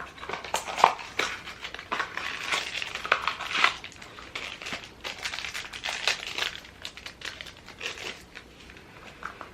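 Mystery pin packaging being torn open and handled: crinkling and rustling with sharp crackles, busiest in the first half and thinning out near the end.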